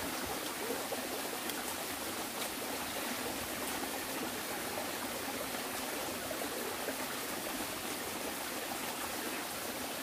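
Mountain stream running steadily over rocks, an even rushing of water.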